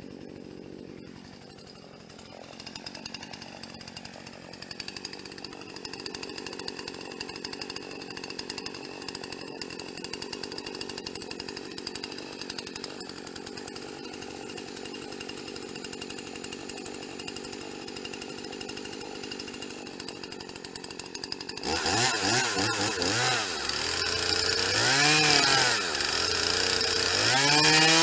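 Chainsaw engine running steadily, then revved up and down repeatedly from about three-quarters of the way in, getting louder toward the end.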